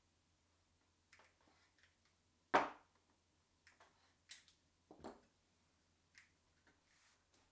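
Red plastic spring clamps being released and pulled off a wooden jig fence: a string of sharp clicks and knocks. The loudest comes about two and a half seconds in, and another about five seconds in.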